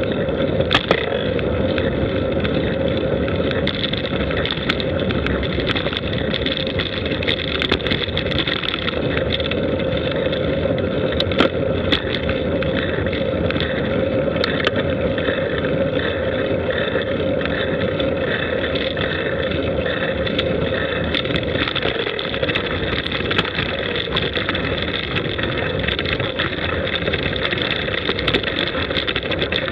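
Steady running noise from a camera mounted on a vehicle moving slowly over a rough forest road: an even rumble and drone with scattered small clicks and knocks.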